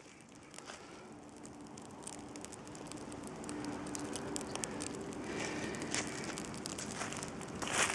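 Small wood campfire crackling, with many small snaps and pops, growing louder over the first few seconds as it catches.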